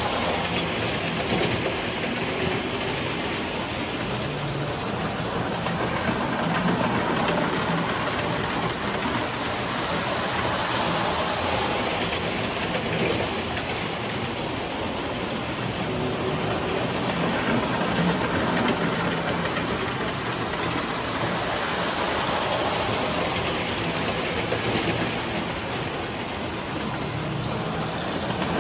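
Tinplate toy trains running on metal track: a steady rushing rumble of metal wheels on tinplate rails.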